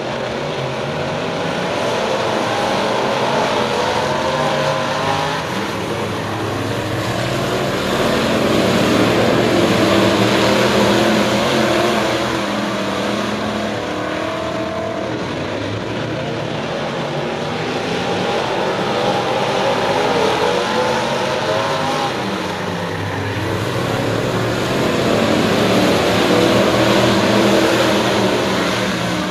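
A pack of crate-engine dirt modified race cars running laps on a dirt oval. Their V8 engines swell and fade as the field comes around, loudest about a third of the way in and again near the end.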